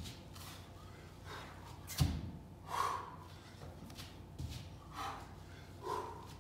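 Dull thuds of bare feet and hands landing on a gym floor mat during burpees, the loudest about two seconds in.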